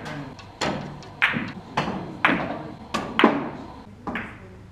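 Billiard balls clacking against one another on the table, a string of about seven sharp knocks with a brief ringing tail, fading toward the end.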